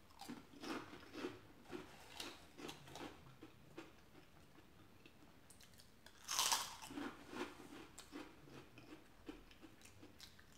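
Close-up eating sounds: soft chewing throughout, with one sharp crunch as a crunchy snack is bitten about six seconds in, then more chewing.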